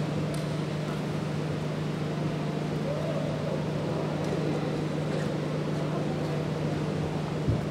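Steady hum and noise of an indoor sports hall, with faint voices and a single thump near the end.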